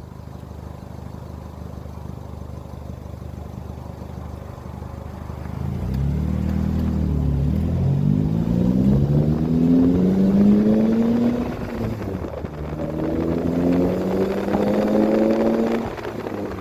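Polaris Slingshot's four-cylinder engine through a cat-deleted Thermal RD dual exhaust. It runs low and steady at first, then accelerates with rising pitch, drops as it shifts up about 12 seconds in, accelerates again and eases off near the end. The exhaust tone is fairly mild, said to sound like a Honda four-banger.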